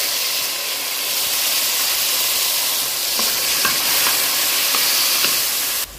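Chopped tomatoes sizzling in hot olive oil and fried garlic in a pan. In the second half a utensil stirs them, with a few light taps against the pan. The sizzle cuts off suddenly near the end.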